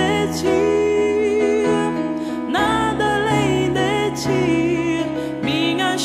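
Slow Christian worship ballad playing: a wavering, sustained melody over held keyboard chords and bass, with the chords changing twice.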